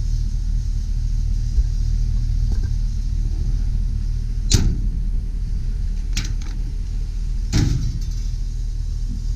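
Steady low rumble of the truck's 6.0L V8 idling, with a sharp metal clunk about halfway through, a lighter one soon after and another clunk near the end as the utility body's compartment doors are handled.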